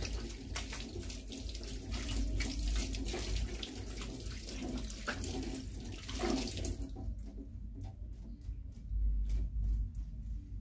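Water running from a tap into a sink as hands are washed under it. The water stops about two-thirds of the way through, and a few small knocks follow.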